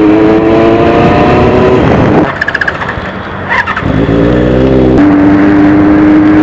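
Benelli motorcycle engine running, its note climbing steadily for about two seconds and then dropping away. After a short, quieter lull with a few clicks it picks up again and settles into a steady note.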